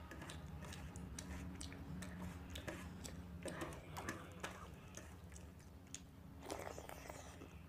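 Fingers mixing water-soaked fermented rice (panta bhat) in a steel plate, with soft wet squishing and many small clicks, along with some chewing. A faint steady low hum sits underneath.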